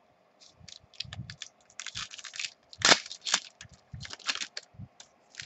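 Wrapper of a trading card pack crinkling and tearing as it is opened by hand: a run of short, sharp crackles, the loudest tear about three seconds in.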